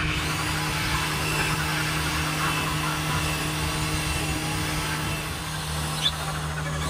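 Motor-driven wood lathe running steadily with a wooden bowl spinning on it, a constant low hum under a steady whir. One short sharp click about six seconds in.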